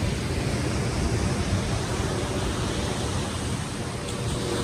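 Steady rushing noise of surf at a sandy beach, even in level, with a heavy low rumble.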